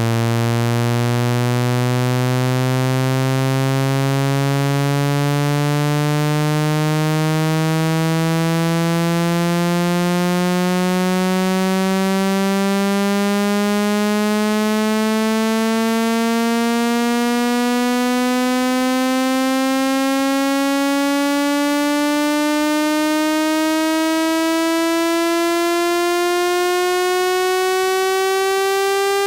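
Electronic speaker-cleaning 'water eject' tone: one loud, buzzy synthetic tone rich in overtones, sweeping slowly and steadily upward in pitch. It is meant to shake a phone speaker's diaphragm hard enough to push trapped water out through the grille.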